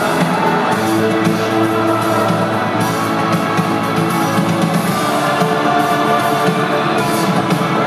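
Live rock band playing loud and steady, with electric guitar and drums with cymbals and no vocals.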